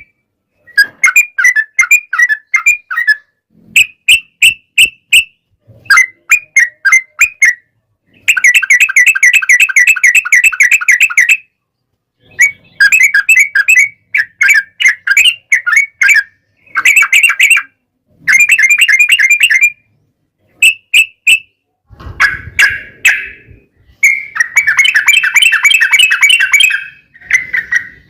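Yellow-vented bulbuls (trucukan) singing in fast, bubbly chattering phrases, one burst after another with short pauses between them, like two birds answering each other in a rapid-fire 'ropel' song.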